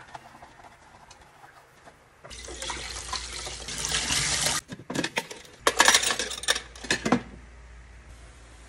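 Kitchen tap water running and splashing onto a stainless steel basin in a sink while dishes are rinsed. A steady rush of water comes in about two seconds in, followed by a run of loud, sharp clatters and splashes for a second and a half, before it goes quiet.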